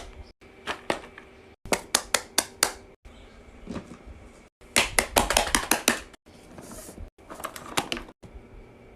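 Fidget toys being pressed and popped: quick runs of sharp pops, several a second, in short bursts that break off abruptly, with a denser rustling, crackling stretch about five seconds in.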